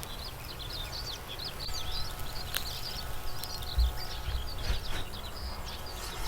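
Small birds chirping and twittering continuously, with a sharp click about two and a half seconds in and a few dull low thumps around the middle.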